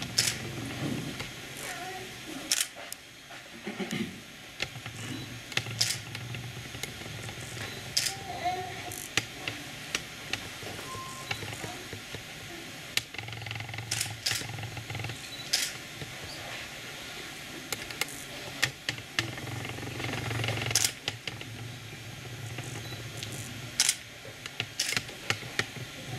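Hushed room tone: a steady low hum under scattered short clicks and rustles from people standing still and a handheld camera being moved.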